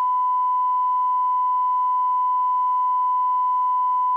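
Broadcast line-up tone: one steady, unbroken electronic beep at a single fixed pitch, played over the black end of the recording.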